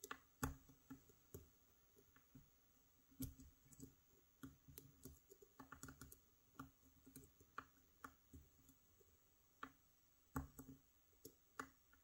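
Faint, irregular small metallic clicks and taps of a thin picking probe working the spring-loaded sliders of a Fontaine Dynaxis Bramah-style lock under tension from a tensioner, during single-pin picking.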